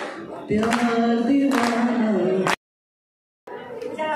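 People singing a song with long held notes. About two and a half seconds in it cuts off to dead silence for nearly a second, then the singing starts again.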